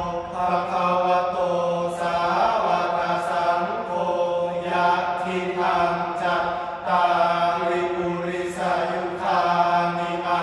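Young men chanting sarabhanya in unison, the melodic Thai Buddhist verse chant, their voices held in long sustained notes. Phrases are broken by brief pauses for breath about every two seconds.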